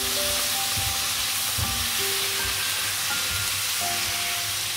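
Winged beans sizzling and hissing in a hot wok after a splash of water, stirred with a wooden spatula, with soft knocks of the spatula against the pan. Soft background music of held single notes plays along.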